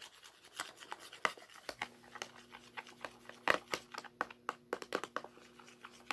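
A utensil scraping and clicking irregularly against a cup as a shampoo-and-salt slime mixture is stirred.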